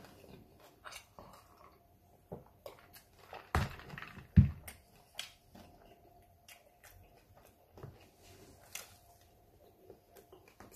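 A person eating fast food: quiet chewing with small clicks and crackles of food being handled. Two thumps come about a second apart, a little past the middle, the second the loudest.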